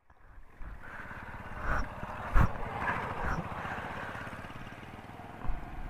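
Small motor scooter engine running steadily while riding, with a couple of short knocks about two seconds in.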